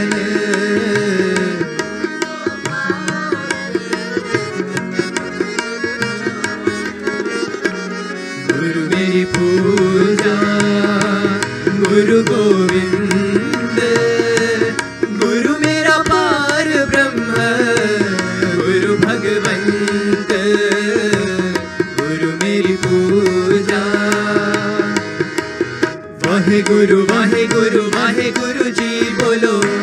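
Indian devotional music: tabla keeping a steady beat under a wavering melodic line.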